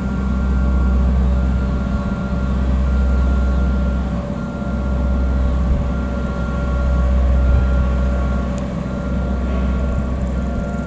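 Steady mechanical running with a low rumble that swells and fades every couple of seconds, and a high whine that cuts in and out.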